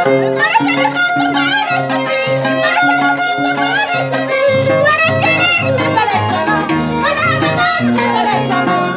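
Andean harp and violin playing traditional music together: the harp plucks a bass line that changes note about twice a second while the violin carries a melody with vibrato above it.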